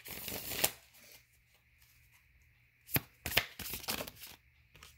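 Tarot cards being shuffled and handled: a short flurry of card noise at the start, a sharp tap about three seconds in, then another quick run of card riffling and slapping.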